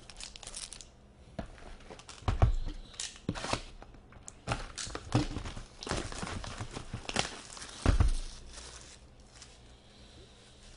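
Plastic shrink-wrap crinkling and tearing as a cardboard hobby box of trading cards is unwrapped, with scattered rustles and clicks and two heavier thumps, about two and eight seconds in.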